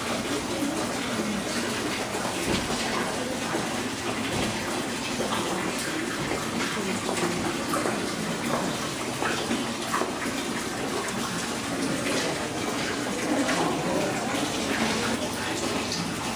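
Steady rush of running water, with faint voices mixed in.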